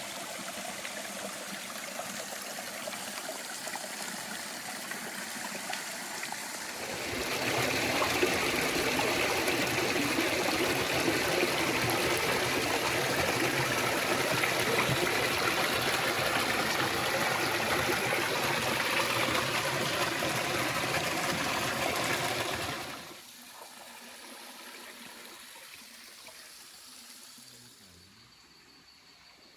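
Waterfall water splashing and flowing steadily. It gets louder about seven seconds in, drops back sharply later on, and fades low near the end.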